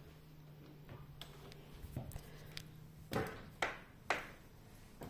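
Quiet movement and handling noises: a few light clicks, then three soft thuds about half a second apart, over a faint steady hum that stops about three seconds in.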